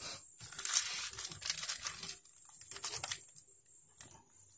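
Packaging wrap and tape crinkling and rustling in irregular spurts, with small crackles, as hands tug at the bindings wrapped around a parcel.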